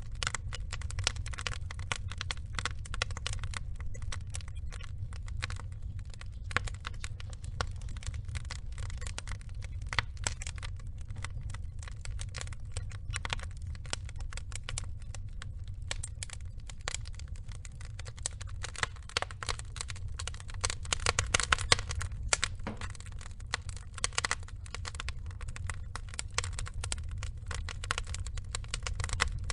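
Burning logs crackling and popping, dense irregular snaps over a low steady rumble of the fire, with a busier flurry of louder pops a little past the two-thirds mark.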